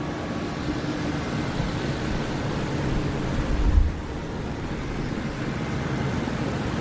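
Steady rushing background noise with a faint low hum, broken by a single low thump a little over halfway through.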